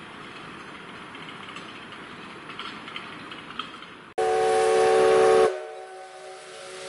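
Faint background for about four seconds, then an L-class steam locomotive's whistle starts abruptly, blowing loud for about a second and a half as several tones sounding together. It drops off into steam hissing with the whistle tones faint beneath, and the hiss grows louder near the end.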